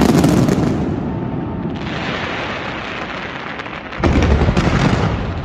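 Fireworks display going off: a loud burst at the start, a stretch of dense hissing, then heavy low booms from about four seconds in.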